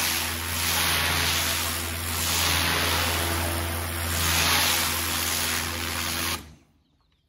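Pressure washer blasting a jet of water onto a ribbed panel on concrete: a loud, steady hiss of spray over the machine's motor humming, swelling and easing as the lance sweeps. It stops abruptly a little after six seconds in.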